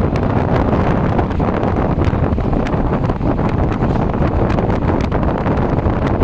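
Wind buffeting the microphone at the open window of a moving vehicle, over the rumble of its engine and tyres on the road: a loud, steady rush with frequent small crackles.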